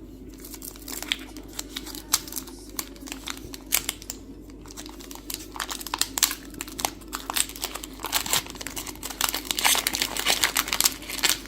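Foil wrapper of a Pokémon TCG booster pack crinkling and crackling as it is worked open by hand; the pack is hard to open. The crackles grow denser near the end.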